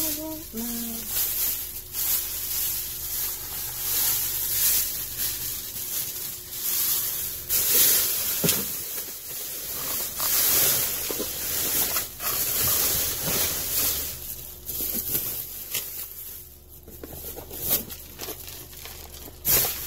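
Clear plastic trash bags rustling and crinkling as they are handled and pulled apart, in irregular crackly bursts.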